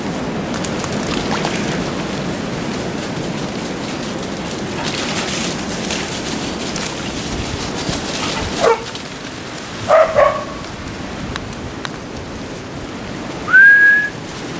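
Dogs giving a short yelp and then a couple of quick barks over a steady rustling hiss, followed near the end by a short rising whistle that levels off, the loudest sound.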